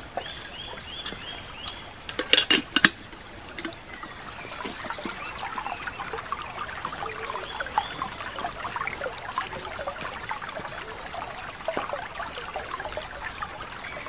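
Shallow stream trickling and babbling over stones, a steady wash of small splashes. In the first two seconds a bird gives a short series of evenly repeated high chirps, and about two seconds in comes a cluster of sharp knocks, the loudest sounds here.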